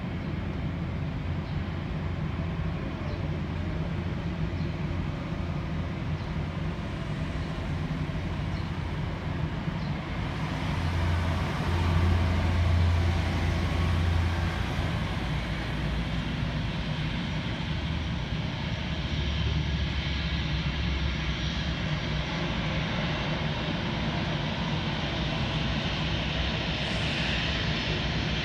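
Jet airliner's engines running as the arriving JAL jet rolls along the runway: a steady jet rumble with a low hum, loudest about halfway through, and a brighter hiss building near the end.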